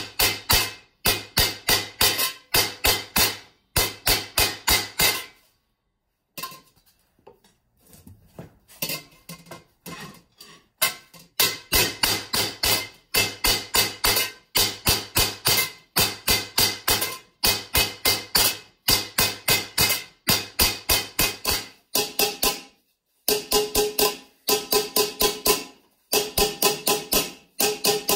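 Hammer blows on a copper lamp shade held over a steel stake, shaping the copper. The blows come quickly, about four a second, in short runs, and each one rings. Between about six and eleven seconds in there is a pause and then lighter, scattered taps before the loud runs resume.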